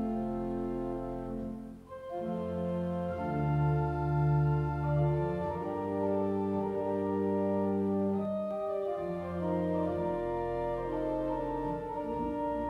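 Organ music: slow, held chords that change every second or two, with a brief break about two seconds in.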